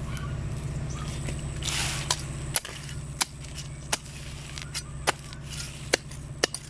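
Rustling and scattered sharp snaps of someone moving through backyard garden plants, with a brief louder rustle about two seconds in. A low steady hum runs underneath and drops a little partway through.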